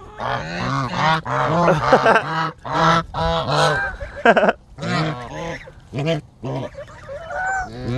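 Domestic geese honking: a string of about a dozen short calls in quick succession, some overlapping, with only brief gaps between them.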